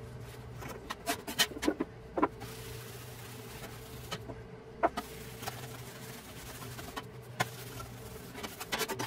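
Metal license plate and a tin can being handled on a wooden workbench: a run of sharp clacks and knocks over the first couple of seconds and again near the end, with a cloth rubbing over the plate's stamped steel in between as it is wiped down with acetone. A steady low hum sits underneath.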